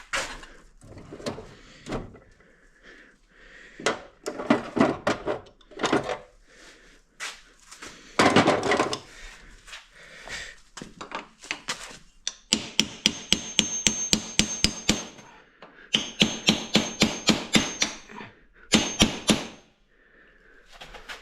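Hammer blows on a stuck part of an ATV that won't budge: scattered single knocks at first, then from about halfway three quick runs of strikes, about five a second, with a high metallic ring.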